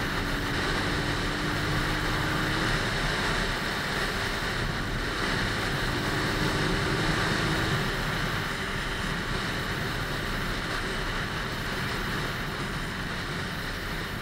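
Wind rushing over a helmet-mounted microphone at riding speed, with the Lexmoto ZSX-F motorcycle's engine running underneath; the engine note rises slowly twice as the bike accelerates.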